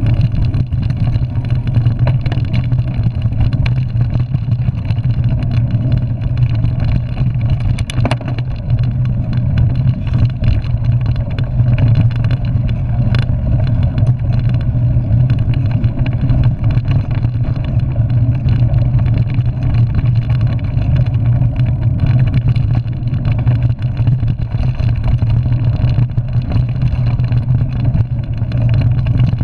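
Mountain bike rolling fast over a dirt singletrack, heard through a handlebar-mounted camera: a steady, loud low rumble of tyres, frame rattle and wind on the microphone, with a couple of brief clicks.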